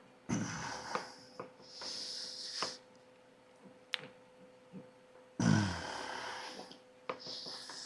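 A man straining with effort: two strained grunts that fall in pitch and forceful hissing breaths, with a few sharp plastic clicks from the air box parts being worked loose.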